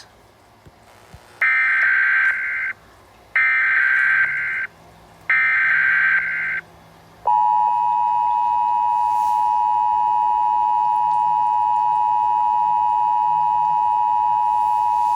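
Emergency Alert System tones from a homemade mock alert: three short bursts of screeching SAME header data tones, then, about seven seconds in, the steady two-tone EAS attention signal begins and holds.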